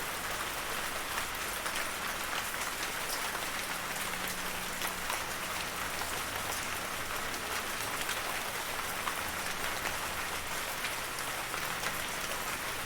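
Steady rainfall, with many small drops pattering on a surface.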